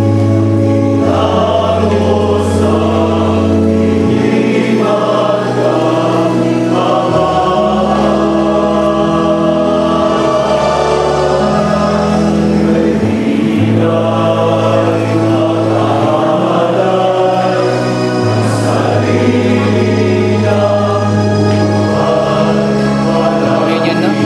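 Choir singing a communion hymn over sustained organ chords that change every few seconds.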